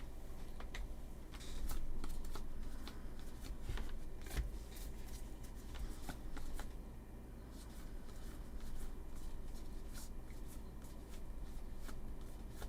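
2023 Topps Series 2 baseball cards being flipped through by hand, one card slid off the front of the stack onto the back, making a soft papery rustle with many small irregular clicks.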